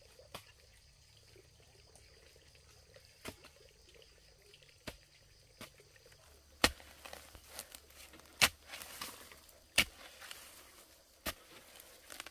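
Sharp snaps of vegetable stems being broken off by hand during picking, about nine, irregularly spaced and louder in the second half, with light rustling of leaves between them.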